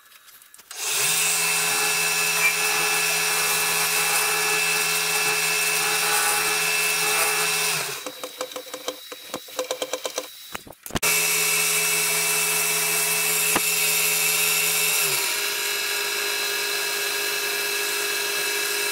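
Vertical milling machine running steadily with an even motor hum. It stops about eight seconds in, leaving some scattered clicks and a sharp knock, then starts again and runs on, its pitch dropping a little about two-thirds of the way through.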